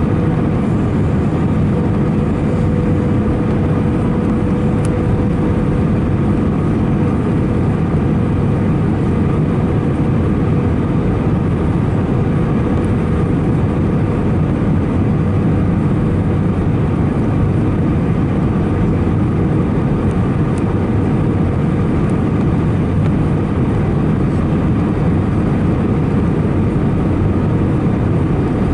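Steady cabin noise inside an Airbus A319-111 in flight: a loud, even rumble of CFM56 engines and airflow, with a faint steady hum that fades out near the end.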